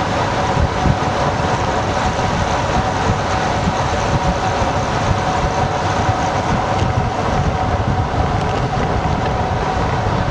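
Wind rushing and buffeting on the microphone of a road bicycle moving at about 40 mph, with a low rumble and a steady hum from the tyres rolling on asphalt.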